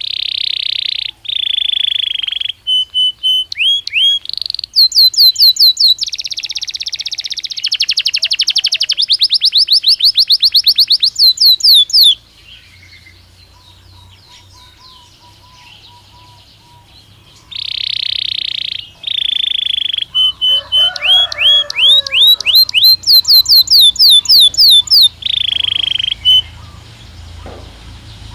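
Belgian canary singing in two long phrases of fast trills and rapid rising whistled notes, with a pause of a few seconds between them.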